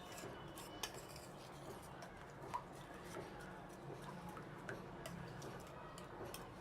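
Faint, scattered clinks of a spoon against a bowl while stirring cocoa powder and liquid glucose into milk, the clearest about a second in and again about two and a half seconds in.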